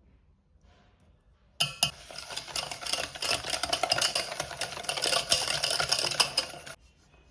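Baking ingredients being stirred briskly in a mixing bowl, a utensil scraping and clicking rapidly against the bowl. It starts suddenly about a second and a half in and stops abruptly near the end.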